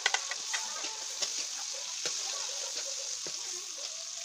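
Oil sizzling steadily in a wok as sliced onion, garlic and chicken skin fry. A metal spatula clacks and scrapes against the pan several times as it stirs, loudest right at the start.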